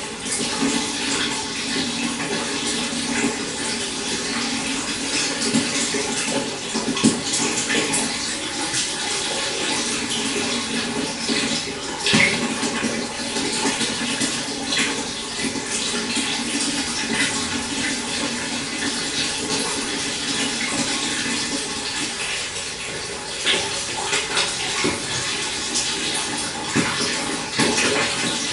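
A shallow stream running and splashing steadily over stones, with small trickles and gurgles throughout and a few slightly louder splashes about 7 and 12 seconds in.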